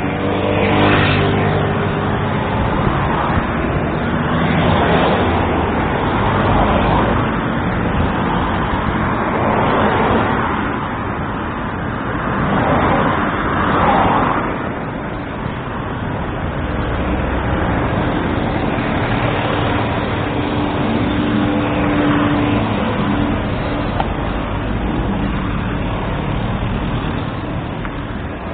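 Road traffic: a continuous rumble of engines and tyres, with several louder swells as vehicles pass one after another.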